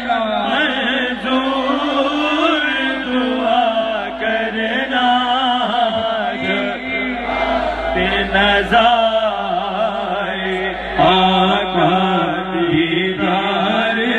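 Male voices chanting a noha, a Shia mourning lament, together: a lead reciter's voice with a crowd singing the slow, wavering refrain along with him.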